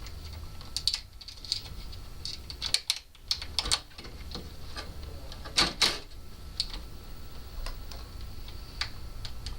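Irregular light clicks and metallic taps of a door lock being fitted by hand, with a few louder knocks about three seconds in and again near the middle, over a faint steady low hum.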